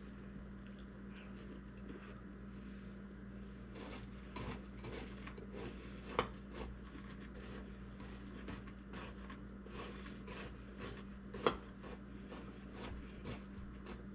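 Eating cereal with milk: small crunches and spoon-and-bowl clinks, with two sharper clinks about six and eleven and a half seconds in. A steady low hum runs underneath.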